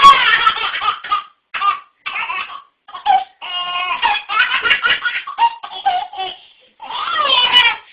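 A baby belly-laughing in repeated peals with short breaks between them.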